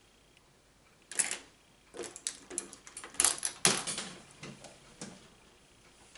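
Small hard makeup items clattering and knocking on a table as they are dropped and picked up: a string of sharp clicks and taps starting about a second in, the loudest a little past the middle.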